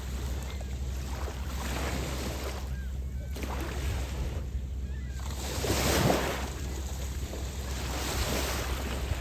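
Small waves washing onto a beach in repeated swells, the largest breaking about six seconds in, over a steady low rumble of wind on the microphone.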